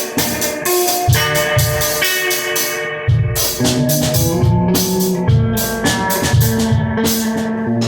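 Guitar and drum kit playing together, with many sharp snare and cymbal hits and kick-drum thumps under sustained guitar notes.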